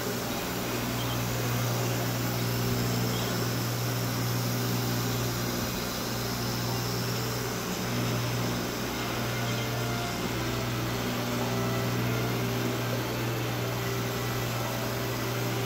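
A steady low machine hum with a faint, even hiss over it.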